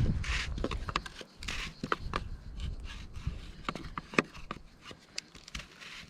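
Irregular clicks, taps and rubbing of plastic irrigation pipe fittings being handled and tightened.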